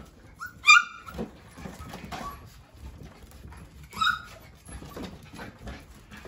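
Young puppies playing: a couple of high-pitched yips just under a second in and another about four seconds in, with small scuffling clicks between them.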